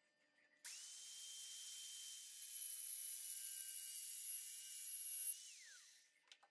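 Angle grinder with a thin cut-off disc switched on about half a second in, running with a steady high whine and cutting through brass rod, louder for about three seconds while it cuts. It is then switched off, and the whine falls away as the disc spins down.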